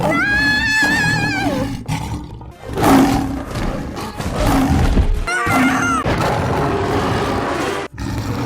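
Hollywood Edge stock lion roars, snarls and growls: a run of long, rough, snarling roars with louder surges about three and five and a half seconds in, mixed with music. It opens with a high, wavering cry that falls away after about a second and a half.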